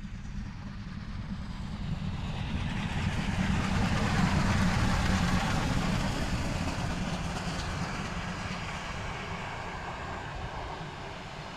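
Passenger train of vintage coaches passing, its rolling noise and low rumble building to a peak about four seconds in and then slowly fading.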